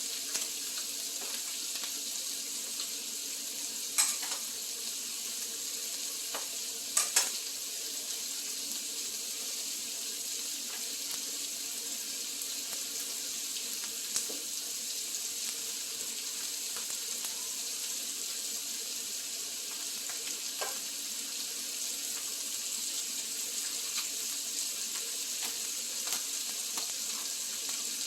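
Duck meat sizzling steadily in a hot pan, with a few sharp clicks of utensils scattered through it.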